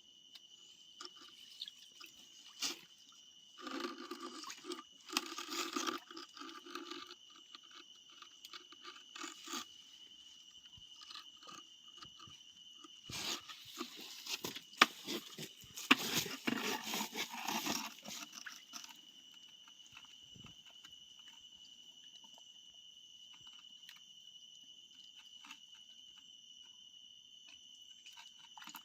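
Crickets or other night insects trilling in one steady high tone. Twice, for a few seconds at a time, there is close crunching and rustling, like something being handled or brushed through vegetation.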